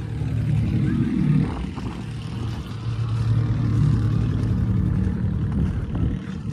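Vehicle engine running with a steady low hum as the vehicle pulls away, swelling slightly now and then.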